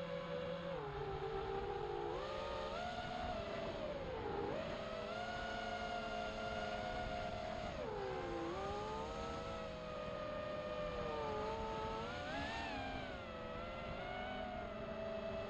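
Brushless motors of an XHOVER MXP200B FPV racing quadcopter whining in flight, the pitch rising and falling again and again with throttle changes, over a low rushing noise.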